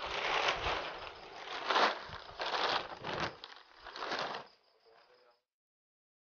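Large clear plastic sack rustling and crinkling, handled and pulled open for packing wet cassava pulp: a run of loud swishes over about four seconds, then a faint tail that cuts off suddenly.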